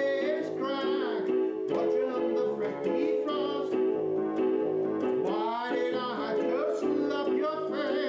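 A song: an electronic keyboard holding sustained chords while a man sings over it in phrases.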